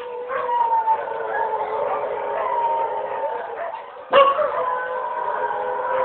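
Several dogs howling together in long, overlapping held notes, with a louder howl breaking in sharply about four seconds in.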